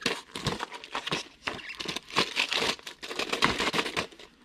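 Medicine packaging handled, crinkling and rustling in quick, irregular bursts that stop about four seconds in.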